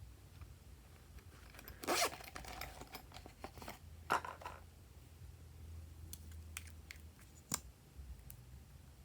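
Slime being worked with added pieces mixed in, giving scattered small clicks and crackles, with two louder crackling bursts about two and four seconds in.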